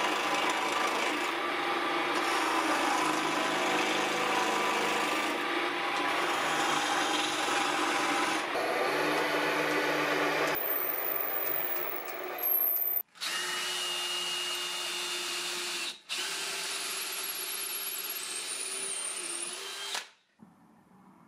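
Small hobby lathe's 12 V DC motor running while a Delrin cylinder is turned with a woodturning gouge, a dense scraping noise over the motor hum. After about ten seconds it is cut into shorter steady stretches as the Delrin is drilled from the tailstock chuck. The sound stops near the end.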